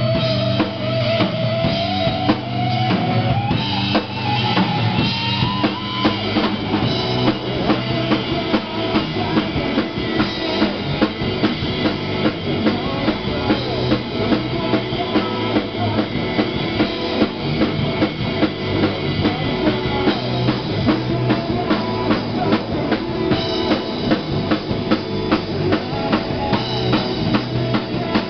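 Live rock band playing an instrumental passage: electric guitar over a drum kit keeping a steady beat. In the first few seconds a guitar line slides upward in pitch.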